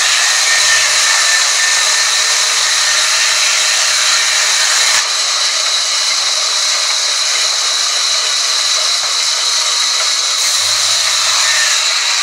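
Sawmill band saw ripping a timber plank lengthwise: the loud, steady rushing hiss of the blade in the wood, with a steady high whine running through it.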